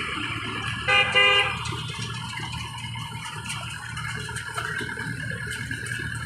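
A vehicle horn gives two short toots about a second in, over a steady low engine rumble.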